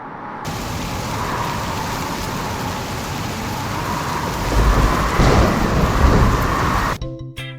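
Sound effect of steady heavy rain with a deep rumble of thunder rolling in about halfway through. It cuts off suddenly near the end as music begins.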